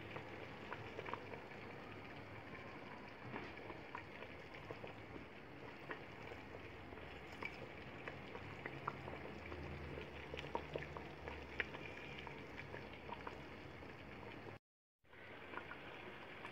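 Thick red grape jam simmering gently in a large pot over low heat: a soft, steady bubbling with many small scattered pops. The sound drops out completely for a moment near the end.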